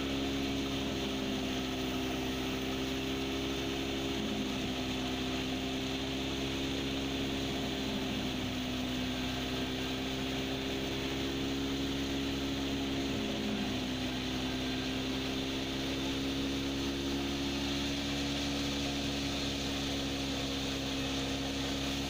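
Hudaibiah wheat thresher running steadily at work speed: a constant mechanical hum whose pitch wavers slightly, over the whirr of its drum and sifting fan.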